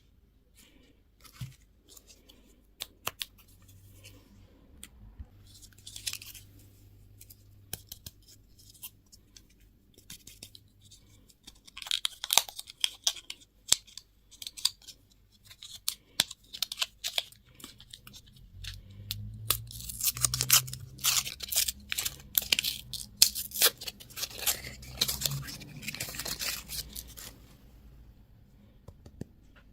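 Candy and toy packaging being torn open and handled: crinkling and tearing of wrappers with many sharp clicks, busiest in the second half.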